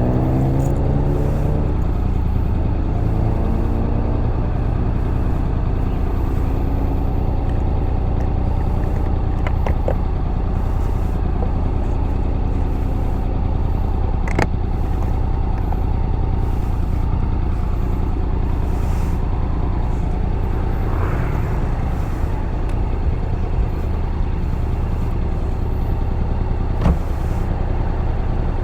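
Honda X-ADV 750's parallel-twin engine running under steady wind and road noise, heard from on board the moving scooter. The engine's pitch falls over the first couple of seconds and then holds steady, with a sharp click about halfway through.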